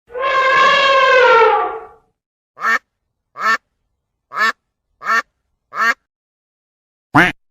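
Animal calls: one long pitched call lasting about two seconds, then six short calls, five in quick succession and a last one near the end, with dead silence between each.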